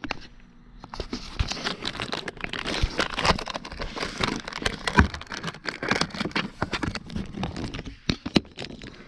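Close, continuous crinkling and rustling, broken by many sharp clicks and taps, from something being handled.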